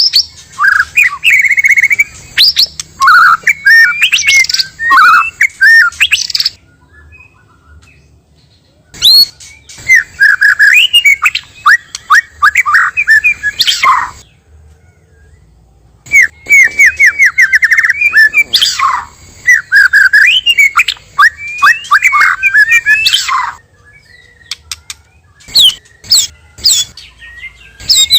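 White-rumped shama (murai batu) singing in long, varied phrases of rapid whistles, chirps and sweeping notes, in three bouts of several seconds each with short pauses between, and a few brief calls near the end.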